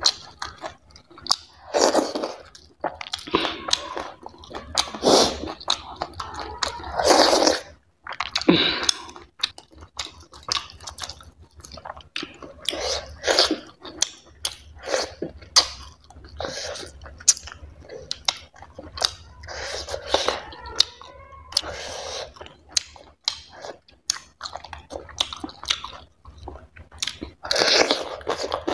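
Close-miked mouth sounds of a person eating chicken curry and barley dhido by hand: chewing in irregular bursts with many sharp clicks.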